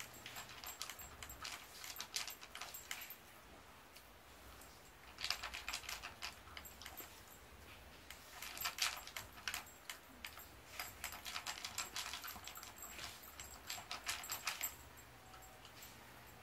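A mixed-breed dog eating dry kibble from a bowl: four bouts of crisp crunching and chewing with short pauses between, mixed with the light clinking of the metal tag on its collar.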